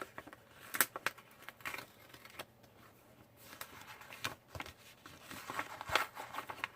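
Paper and cardstock rustling and crinkling in short, irregular bursts as a glued photo is handled and shifted on a scrapbook page.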